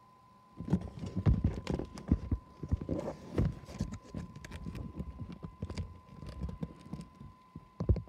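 Handling noise on the recording phone's microphone: irregular thumps and sharp knocks with rubbing between them, starting about half a second in, with a last cluster near the end.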